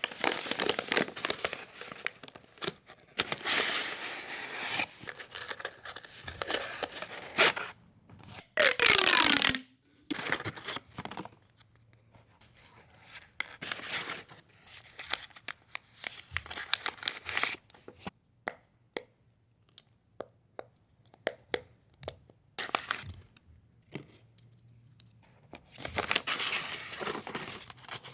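A fidget blind bag's packaging being torn open and crinkled by hand: irregular bursts of crinkling and tearing with scattered light clicks and taps, and one sharp rip falling in pitch about nine seconds in.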